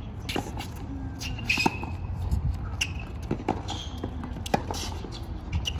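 Tennis rally on a hard court: about six sharp pops of balls struck by rackets and bouncing, the two loudest about a second and a half in and near the middle of the clip, with brief sneaker squeaks between them.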